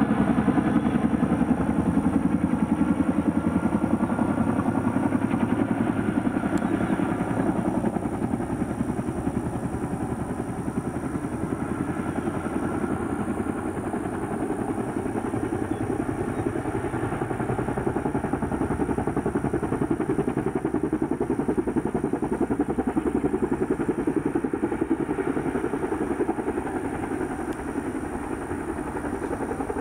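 Boeing CH-47 Chinook tandem-rotor helicopter flying in to land: a fast, steady chop from its two rotors over the whine of its twin turboshaft engines. The engine tones are strongest in the first several seconds and fall away a little after that.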